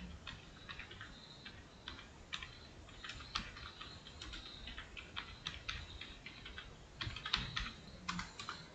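Quiet typing on a computer keyboard: irregular key clicks, with a quicker run of keystrokes near the end.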